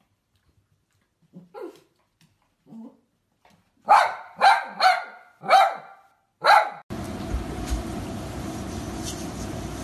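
Small fluffy dog barking five times in quick succession, after a few quieter sounds, in alarm at a black bear just outside a glass door. The barking stops suddenly near the end and gives way to a steady background hum.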